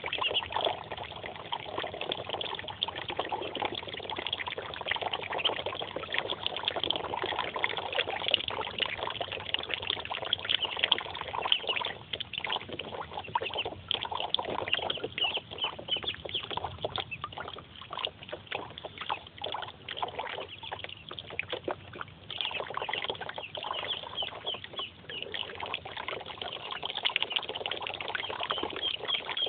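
Muscovy ducklings peeping over steady splashing and trickling water as they paddle in a plastic tub fed by a hose.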